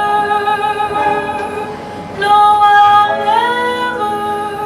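Slow jazz ballad playing, with a woman's voice holding long notes. A new note begins about two seconds in.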